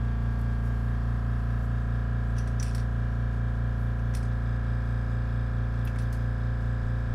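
An airbrush air compressor runs with a steady low buzzing hum. A few faint light clicks come from the airbrush and metal stencil being handled.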